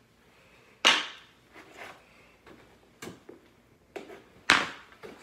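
Hockey stick blade and puck clacking on a shooting pad: two loud sharp hits, about a second in and near the end, with a few lighter taps between them.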